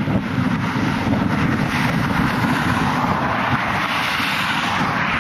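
Highway traffic passing, its road noise swelling and fading as vehicles go by, with wind rumbling on the microphone.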